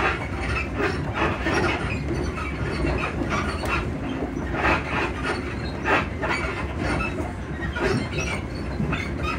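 Inside a Class 334 electric multiple unit running along the line: a steady rumble from the running gear, broken by frequent, irregularly spaced knocks and rattles from the carriage suspension.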